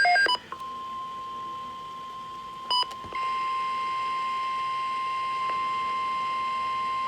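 A pulsed electronic beeping stops just after the start, then a steady single-pitch alert tone sounds. It is quiet at first and steps louder about three seconds in, right after a short beep. This is the NOAA Weather Radio warning alarm tone that comes before a new alert message.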